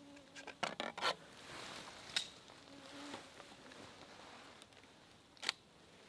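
Rustling of a camouflage suit and handling noise as the wearer moves: a cluster of scratchy clicks about a second in, then single sharp clicks about two seconds in and near the end.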